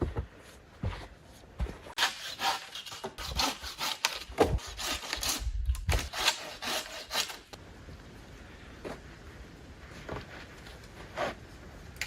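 A hand tool working wood: a run of quick rasping strokes for several seconds, then a few scattered knocks.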